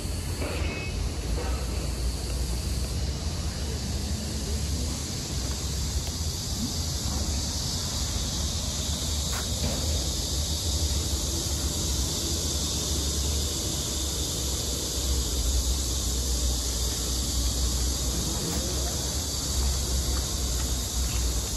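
Steady high-pitched buzzing hiss of insects in the undergrowth, over a low, uneven rumble on the microphone.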